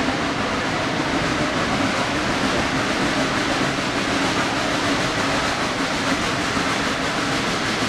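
Geared steam train running, heard from beside a car behind the locomotive: a steady, loud rushing noise of the locomotive working and the cars rolling, with no distinct beats standing out.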